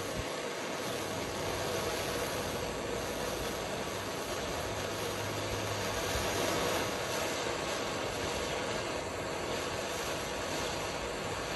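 Handheld propane torch flame hissing steadily while heating a steel nut red-hot, ready to be quenched in vegetable oil to blacken it.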